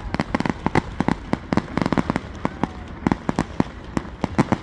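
Fireworks going off: a rapid, irregular run of sharp bangs and crackling pops, several a second.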